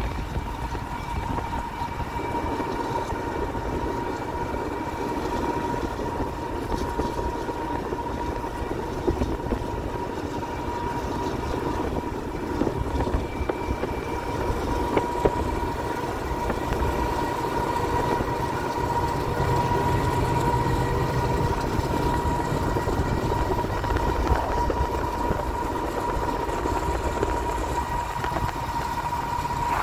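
BNSF GE C44-9W diesel locomotive running at speed alongside, a steady rumble with a steady high whine over it, mixed with road and wind noise from the pacing vehicle.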